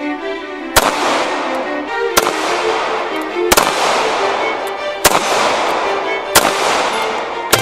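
Background music with six sharp bangs, evenly spaced about a second and a half apart, each ringing on briefly.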